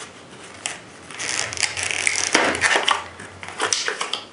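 Clear plastic clamshell blister pack being pried open by hand: the stiff plastic crackles and crinkles, with a few sharp snaps as it pulls apart.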